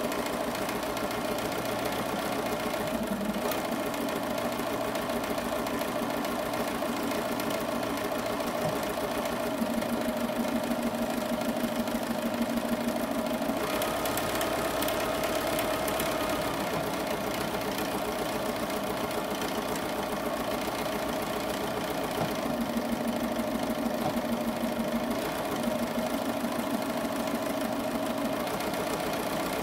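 Bernina 7 series sewing machine running continuously in free-motion stitching, the needle going up and down rapidly through water-soluble fleece. The motor's pitch shifts slightly now and then as the stitching speed changes.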